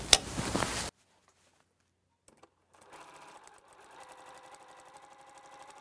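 Sewing machine stitching through fabric and foundation paper. It runs for about the first second and cuts off abruptly; after a short silence it runs again more faintly with a fast, even stitching rhythm.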